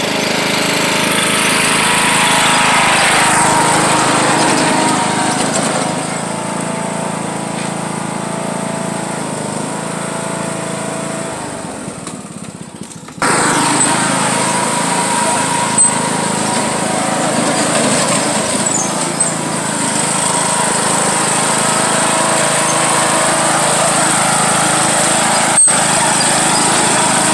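John Deere riding lawn mower engine running steadily while it tows a rider sliding on a board over grass and dirt. The sound drops away and comes back abruptly about thirteen seconds in, and there is a sharp knock near the end.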